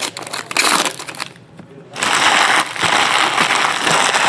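Trading-card pack wrappers being crumpled by hand, close to the microphone: sharp crackles in the first second, then a dense, loud run of crinkling from about two seconds in.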